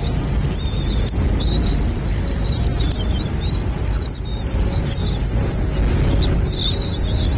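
Birds calling with a string of high, thin chirps and warbling glides, one after another, over a steady low rumble.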